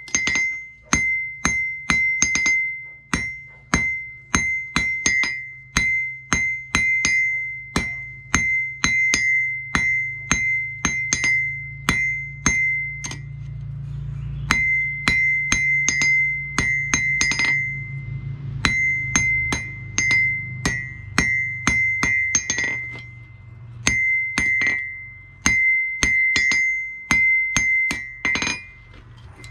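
Hand hammer striking a red-hot steel bar on an anvil, drawing a tong rein out to a gentle taper: a steady run of blows, two to three a second, each leaving a ringing tone from the anvil, with a few short pauses between heats of blows. A low steady hum runs underneath.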